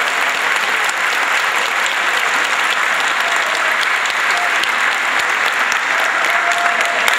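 A large crowd clapping steadily, dense and continuous applause from a congregation.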